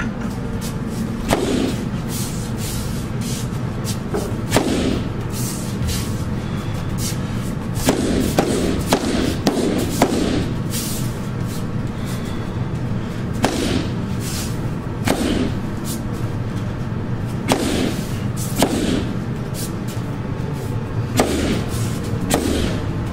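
Rattan stick strikes on a freestanding heavy bag: sharp, irregular whacks one to two seconds apart, with a quick run of hits about eight to ten seconds in, over steady background music.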